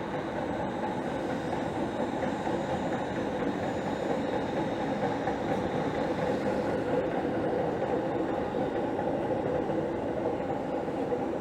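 A Line 5 Eglinton light-rail train running past on its test run, a steady noise of wheels on rail and traction equipment.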